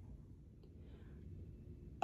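Near silence: low room tone, with one faint click.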